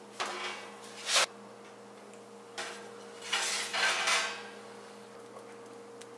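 Pizza stones scraping and clanking against the metal oven rack as baked loaves are pulled out of the oven. There is a loud sharp clank about a second in and a longer run of scraping between three and four seconds in.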